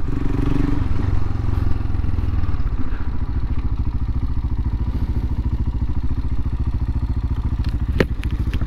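Royal Enfield Himalayan's single-cylinder engine running at low speed, heard from the rider's helmet, a steady fast pulsing that eases slightly about three seconds in. A sharp click sounds near the end.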